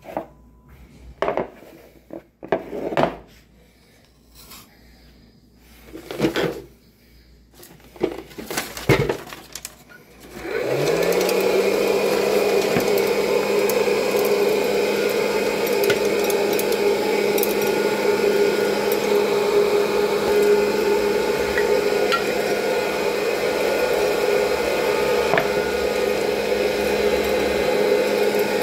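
Hot air popcorn popper (Presto Poplite) switched on about ten seconds in: its fan motor spins up with a brief rising hum, then runs steadily, blowing air. Before it starts, a few scattered knocks and rustles of handling.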